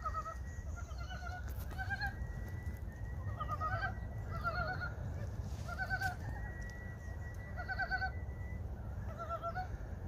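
Frogs calling in a small pond at spawning time in early spring: short, quick runs of clucking notes repeated every second or so, over a steady low rumble.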